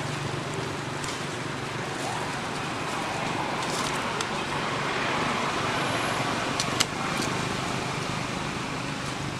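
Steady outdoor background noise, with one sharp click about seven seconds in.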